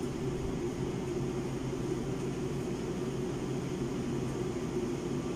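Steady machine hum with a few faint low tones held throughout.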